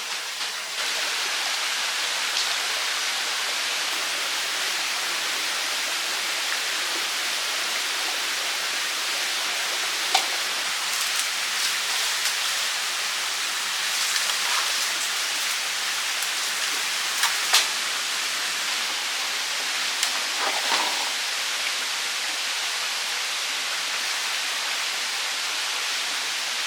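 Steady rush of running water, with a few brief clicks or knocks over it.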